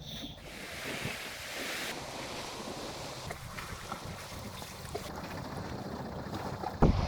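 Steady wind and sea-surf hiss with a few faint clicks. Near the end, a louder rumble of wind buffeting the microphone sets in.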